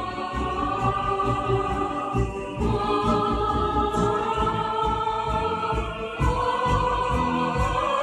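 Background music: a choir singing long held chords, the chord changing about two and a half seconds in and again about six seconds in, over a faint regular ticking.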